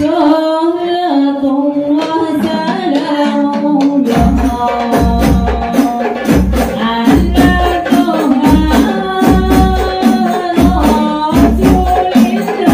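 Women's group singing a melody in unison through a PA, with rebana frame drums coming in about four seconds in and keeping a steady beat of sharp slaps and deep thumps under the voices.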